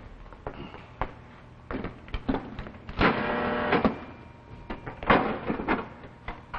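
Electromechanical pinball machine being played: scattered mechanical clicks and knocks, with a loud buzzing ring lasting about a second around three seconds in.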